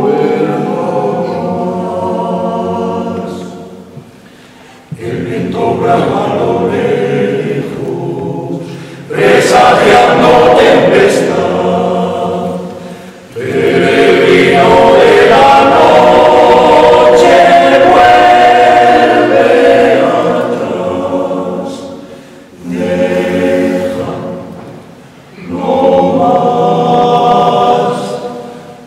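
Male choir singing a cappella, in phrases that swell to full volume and fall away several times, in a stone church.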